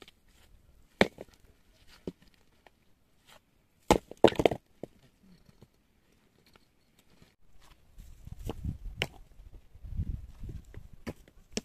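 Stones knocking together as they are thrown down and stacked for a dry-stone wall: a sharp knock about a second in and a quick cluster of knocks about four seconds in, then low scraping and shuffling of stones being shifted near the end.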